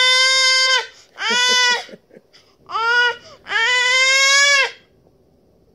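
A baby making loud, long vocal calls, each held at a steady high pitch, several in a row with short breaks: playful vocalizing or 'singing' rather than distress.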